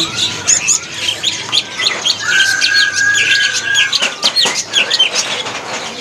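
Blue-winged leafbird (cucak cungkok) in full song: a continuous run of quick, varied high chirps and slurred whistles, with one long steady whistle of nearly two seconds near the middle.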